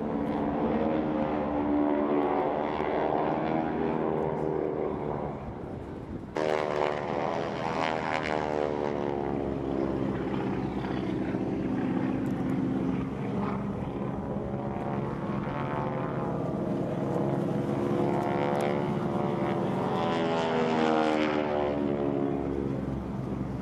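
Propeller airplanes flying past at an airshow, their engines droning, with the pitch sweeping up and down as they pass. The sound breaks off abruptly about six seconds in and picks up again louder with another pass.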